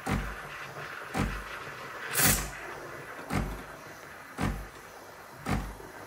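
Sage Bambino Plus steam wand frothing milk in a stainless steel jug: a steady hiss with a low pulse about once a second, and a louder, sharper hiss about two seconds in.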